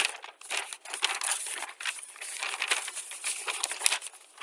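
Crinkling and rustling handling noise close to the microphone, dense with small crackles, which stops abruptly near the end.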